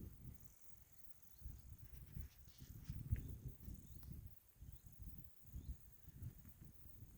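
Faint outdoor ambience: irregular low rumbling, with a faint steady high hiss and a few short, faint high chirps.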